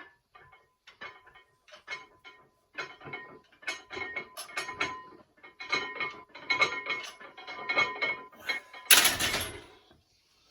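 Repeated metallic clinks and clanks with a light ringing, growing busier, with one loud clash about nine seconds in.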